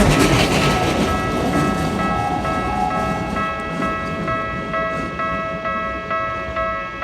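Railway level-crossing alarm bell ringing in a steady repeating pattern, about three dings a second, while a passing Keikyu train's rumble fades away about a second in.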